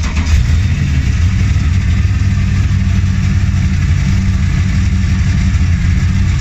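BMW M60B44 hybrid V8 (a 4.4-litre build on an M60 base) idling steadily and loudly just after being push-button started from cold, heard from inside the stripped-out cabin.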